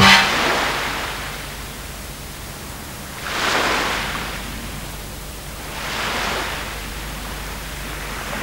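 Wind and sea noise on an open coast, swelling and fading twice, about three and six seconds in, over a faint steady low hum. It opens with a short, loud pitched sound that dies away within a second.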